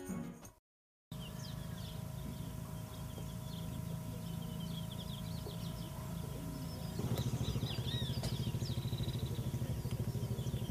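The last of some music cuts off, and after a brief gap comes outdoor ambience: birds chirping over a steady low drone. About seven seconds in, the drone turns into a fast pulsing, like a motor running.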